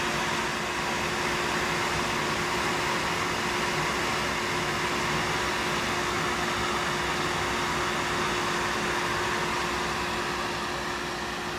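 Workshop machinery running steadily: an even rushing whir with one steady hum through it, fading out near the end.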